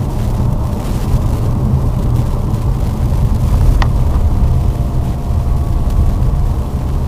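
Lada Vesta driving through deep snow: a steady low rumble of engine and tyres ploughing through snow, with one sharp click about four seconds in.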